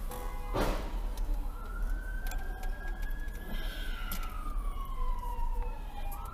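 Police car siren wailing in a slow rise and fall of pitch, over a steady low hum, with a short knock about half a second in.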